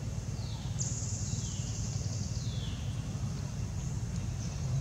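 Steady low rumble like a running engine, with three high whistled calls about a second apart, each falling in pitch, typical of a bird.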